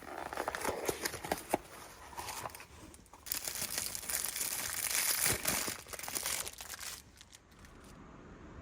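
Crinkling and rustling handling noise with scattered small clicks, growing denser and louder for a few seconds in the middle before it dies away.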